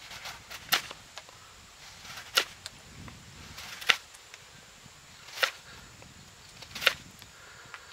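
Fixed-blade knife shaving green wood with the knee lever: five sharp cutting strokes, about one every second and a half.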